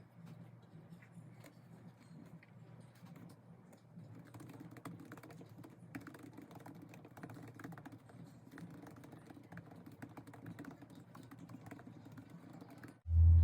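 Typing on a computer keyboard: irregular quick key clicks over a steady low hum. A loud low sound cuts in abruptly at the very end.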